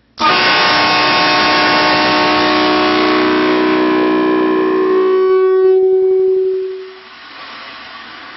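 Train horn blasting a loud chord of several steady tones, starting abruptly and held for about six seconds before its tones drop out one by one and it fades away.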